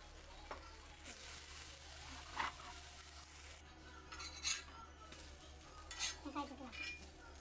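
Metal spatula scraping and clicking against a cast-iron tawa as a thin wheat roll is turned and lifted from the pan, with a few sharp clinks. A steady sizzle of batter cooking on the hot tawa in the first half cuts off about halfway through.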